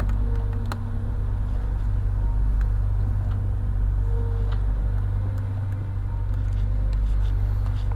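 A steady low rumble, with a few faint light clicks.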